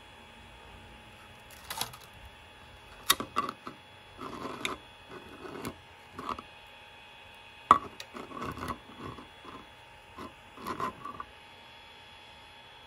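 A hollow 3D-printed plastic box being handled: scattered clicks, taps and short scraping rustles as its parts knock and slide against each other and against the printer bed, over a faint steady hum.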